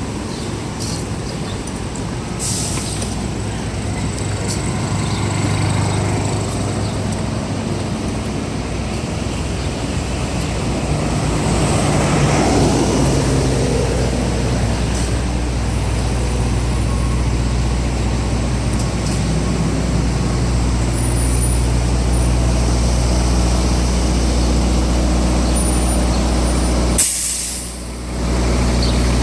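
Heavy diesel truck engine, likely a fire engine's, idling with a steady low drone. A short hiss comes about two seconds in, and a louder air-brake hiss of about a second comes near the end.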